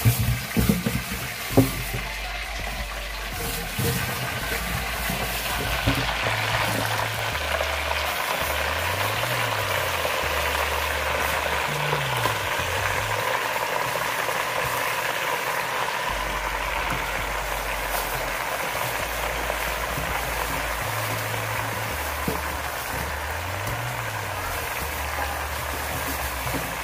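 Pieces of meat frying in bubbling oil in a large pot, a steady sizzle. A few knocks in the first couple of seconds, over a background music bass line.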